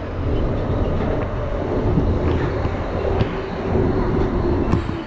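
Paris Metro train running: a steady, loud rumble with a wavering hum and a few light clicks.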